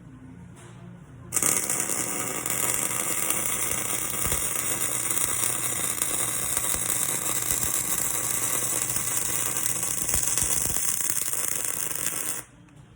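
Electric arc welding: the arc strikes suddenly about a second in and burns with a steady crackling hiss for about eleven seconds, then cuts off abruptly as the arc is broken.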